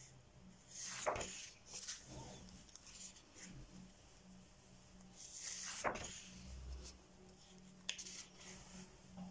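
Pages of a paperback coloring book being turned by hand: two soft paper swishes, about a second in and again near six seconds, and a light click near the end.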